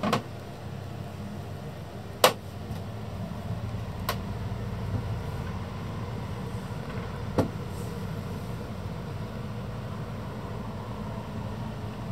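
Four sharp knocks and clicks, the loudest about two seconds in, over a low steady hum inside a sailboat's cabin.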